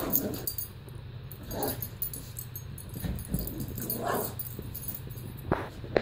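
Two small dogs, one a Yorkshire terrier, playing rough: short dog vocal sounds every couple of seconds, with two sharp knocks near the end.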